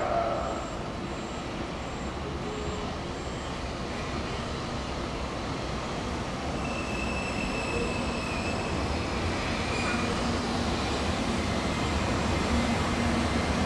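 Shinkansen 923-series Doctor Yellow inspection train pulling slowly into a station platform: a steady low rumble of wheels on rail that grows a little louder as it comes nearer, with a faint high whine around the middle.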